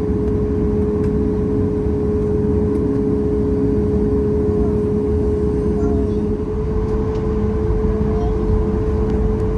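Cabin noise of a Boeing 737 MAX 8 taxiing, its CFM LEAP-1B engines at idle: a steady low rumble with one clear steady hum over it.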